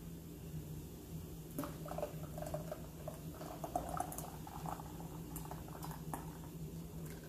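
Thick chocolate syrup pouring from a stainless steel pot into a plastic canning funnel over a glass jar: soft wet plops with small clicks and squeaks, starting about a second and a half in and going on for several seconds.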